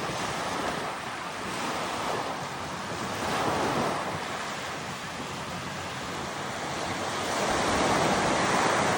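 Waves washing in with a steady rush, swelling about three seconds in and louder again near the end.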